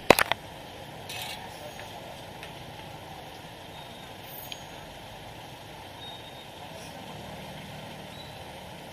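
Busy street background with traffic noise running steadily. A quick cluster of sharp knocks comes right at the start, and a low engine hum swells a little near the end.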